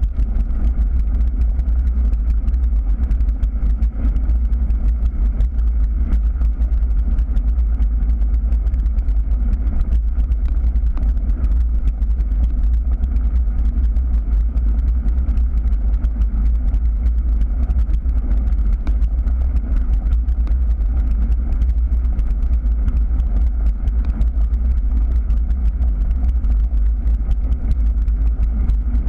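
Wind buffeting the microphone of a bicycle-mounted camera as it rides along a gravel path: a steady, loud low rumble, with the crunch and whir of tyres on gravel beneath it.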